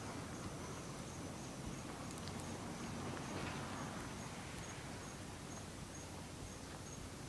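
An insect chirping steadily outdoors: one short, high chirp repeated evenly, about two or three times a second, over low background noise.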